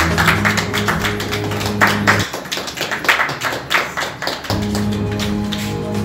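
A group clapping hands in a quick, steady rhythm, about four claps a second, over background music with sustained low notes. The low notes drop out for about two seconds in the middle.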